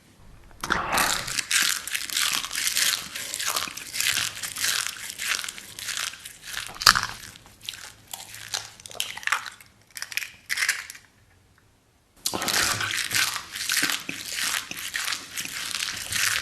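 Close-miked ASMR eating sounds: rapid, crackly crunching and chewing, with a pause of about a second roughly eleven seconds in before the crunching resumes.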